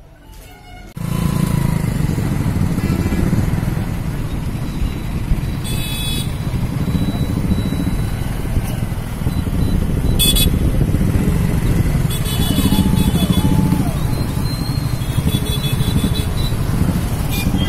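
A convoy of many motorcycles riding past together, with a steady engine drone. A few brief high-pitched sounds cut through it.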